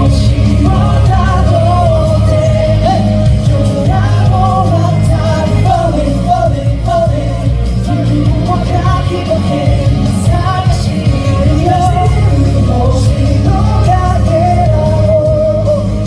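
Pop song played loud over a sound system, with singing over a steady heavy beat: a sound-check run-through of the song.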